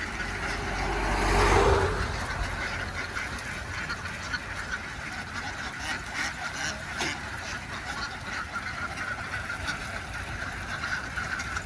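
A large flock of ducks quacking and chattering continuously. A brief louder rush of noise with a low rumble swells about a second in and fades by two seconds.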